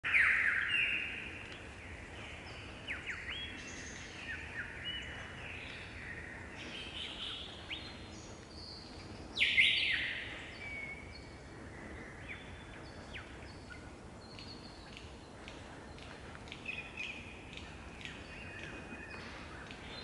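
Lyrebird singing a varied string of loud, whistled and sweeping phrases, one after another. The loudest phrases come at the very start and about halfway through.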